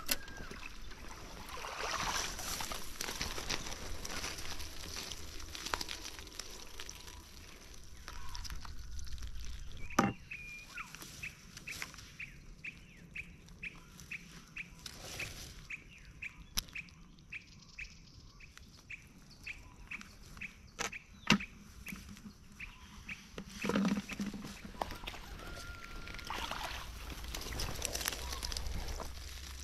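Rustling of dry grass and nylon netting as hoop nets and rope are handled, with a few sharp knocks. Through the middle a bird calls a steady run of short high notes, two or three a second.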